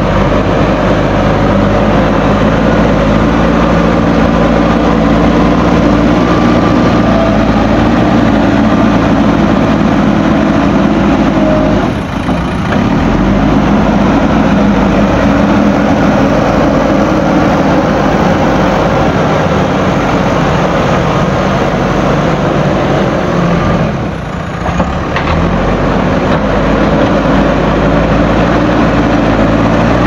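JCB backhoe loader's diesel engine running hard and steadily as the front bucket pushes soil, its note shifting as the revs change. The sound drops briefly twice, about twelve and twenty-four seconds in.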